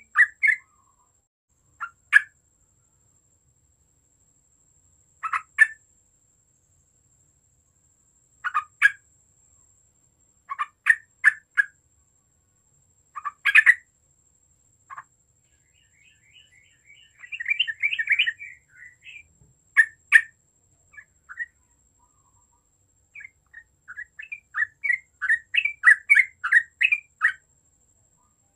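Yellow-vented bulbul singing: short phrases of a few quick notes every few seconds, a longer jumbled chattering phrase about halfway through, and a fast run of notes near the end.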